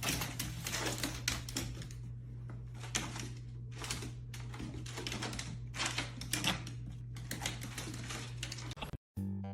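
Rapid, irregular clicking and tapping over a steady low hum.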